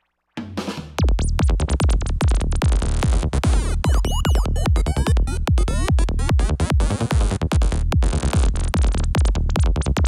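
Psytrance music: after a moment of silence, a kick drum and rolling bassline come in about a second in, under synth lines that glide up and down in pitch.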